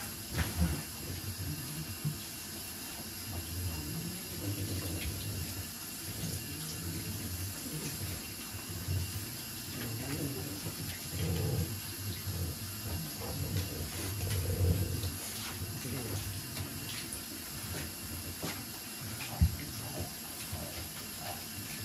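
Water running steadily from a bathtub tap, with a single sharp knock near the end.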